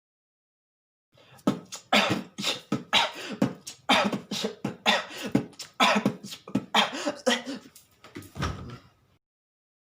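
A person coughing in a rapid rhythmic string, about three sharp coughs a second, so that it sounds like beatboxing, starting about a second in and stopping abruptly near the end.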